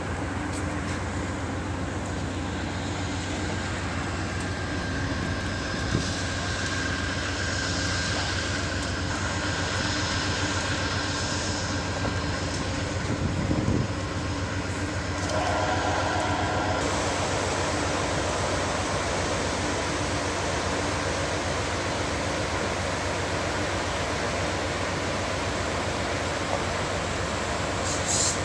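Steady low hum and rumble of a standing Amtrak Coast Starlight train at a station platform, with a few brief louder bumps.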